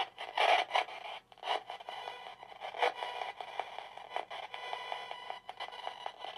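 Spirit box (ghost box) radio sweeping through stations: choppy bursts of static and clipped broadcast fragments, cutting in and out a few times a second.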